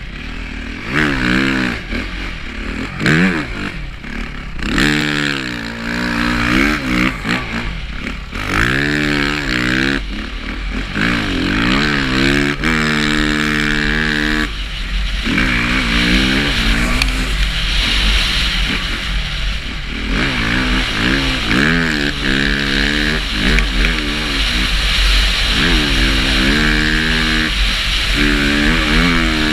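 Motocross dirt bike engine revving hard and easing off again and again as the rider accelerates and shifts through the gears on sand, heard from the rider's helmet. A steady low rumble runs underneath the engine.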